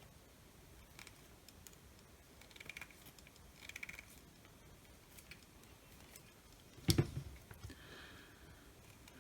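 Pliers handling small metal parts: light clicks and two short bursts of scraping as a ribbon cable connector is squeezed flat, then a single loud knock about seven seconds in.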